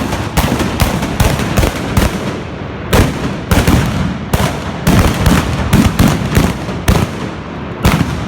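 A group of trabucs (blunderbusses) firing blank black-powder charges in a rapid, irregular volley, more than a dozen loud shots overlapping, each report trailing off in a short echo.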